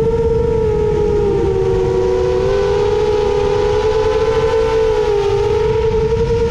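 Brushless motors of a 7-inch FPV quadcopter (Emax Eco II 2806.5 motors on HQ 7x3.5x3 tri-blade props) spinning in flight: a loud, steady buzzing whine of several close tones whose pitch rises and dips a little as the throttle changes, over a low rushing noise.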